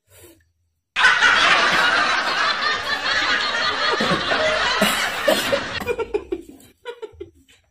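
A dubbed-in laugh-track effect: a dense burst of laughter that cuts in about a second in and stops abruptly about five seconds later, followed by a few softer chuckles.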